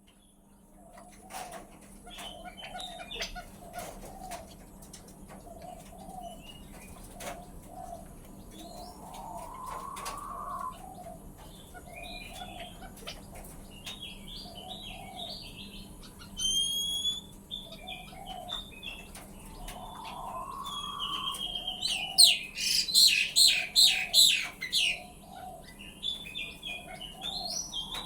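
Male quail calling: a low note repeated about once a second, a rising call roughly every ten seconds, and scattered higher chirps. About three-quarters of the way through comes a loud, rapid burst.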